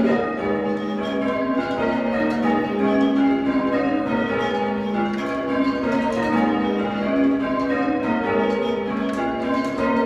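A ring of six church bells, cast in 1789 by Robert Dalton, being rung full circle in steady succession, each strike overlapping the hum of the ones before in a soft tone. Heard from the ringing floor below the bells.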